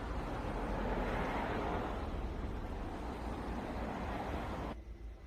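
Steady running noise of a car, a broad hum without a clear pitch, that drops away abruptly near the end.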